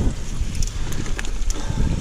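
Giant mountain bike riding over rough dirt trail: a steady low rumble of tyres and wind on the microphone, with scattered clicks and rattles from the bike as it crosses roots and bumps.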